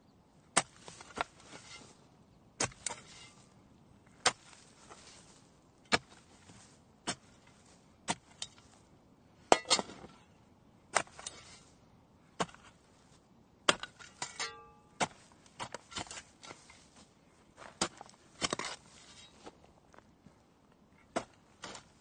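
Shovel digging into sand: a sharp crunching stab each time the blade goes in, roughly every one to two seconds, each followed by a short gritty rustle of sand.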